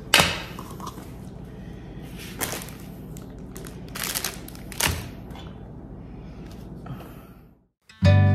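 Small plastic kitchen items clicking and knocking as they are picked up and set down on a countertop, a handful of sharp knocks over a steady room hum, the loudest one right at the start. Near the end the sound cuts out and acoustic guitar music begins.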